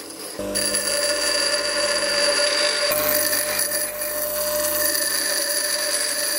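Bench grinder wheel grinding a high-speed steel lathe tool blank, held against the wheel's edge to cut a small chip-breaker step: a steady grinding hiss over the grinder's whine, starting about half a second in.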